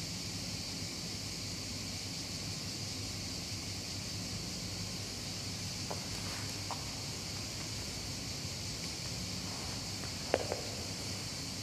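Steady background hiss with a low hum, broken by a few faint clicks and one sharper click near the end.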